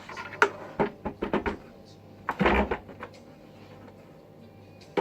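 Plastic clicks and knocks from handling the espresso machine's water tank, with a louder rattling scrape about halfway through and a single sharp click at the end.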